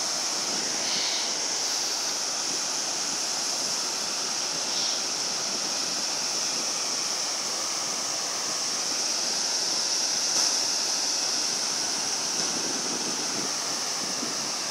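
Surf on a sandy beach: a steady, continuous rushing noise with no clear breaks between waves.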